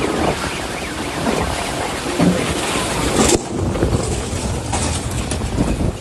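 Gusty storm wind buffeting a phone's microphone in a dust storm: a loud, uneven rushing noise that swells and drops with the gusts.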